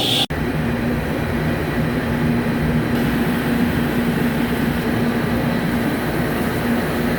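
CNC machine tool cutting a ductile cast iron tire mold segment: steady running and cutting noise with a low hum. There is a sudden brief break a moment after the start.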